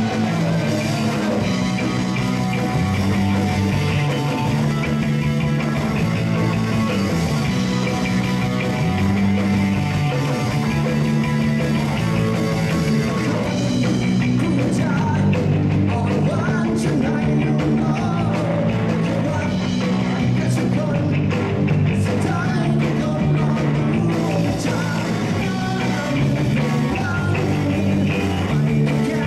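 Rock music with singing: a band song with a bass line stepping between notes under the guitars and vocals.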